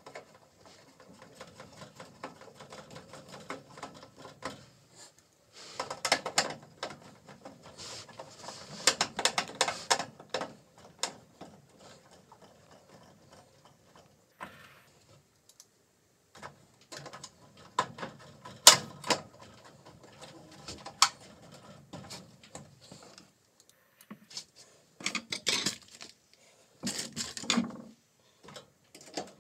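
Bursts of clicking and metallic rattling from sheet-metal panels and screws being handled and fastened as a gas range's cover is put back on, in three or four spells with quieter handling between.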